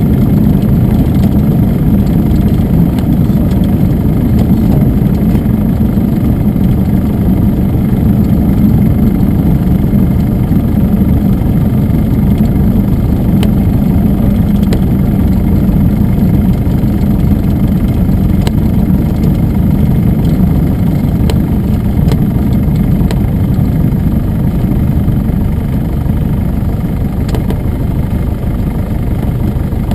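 Piper Tri-Pacer's single piston engine and propeller running with a steady drone, easing off slightly near the end.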